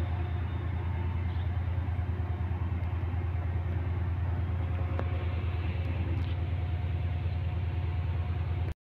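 Diesel locomotive engine idling at a standstill: a steady low drone with a faint hum above it, which cuts off abruptly near the end.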